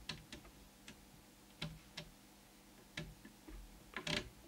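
A few faint, irregular clicks and ticks, with a small cluster of them near the end, over a faint steady hum.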